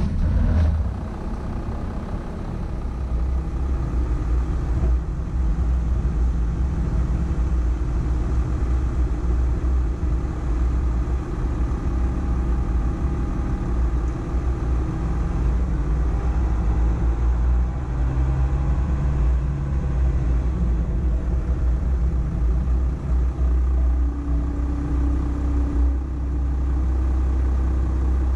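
Volkswagen Amarok pickup driving on an off-road course: a steady low engine rumble whose note rises and falls a little as the throttle changes.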